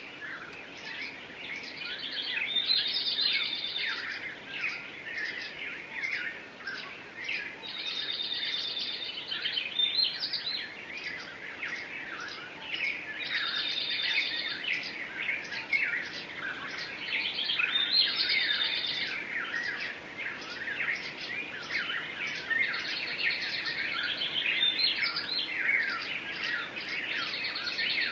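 Several songbirds singing and chirping at once in a dense chorus of overlapping calls, with one bird repeating a short rapid trill about every five seconds.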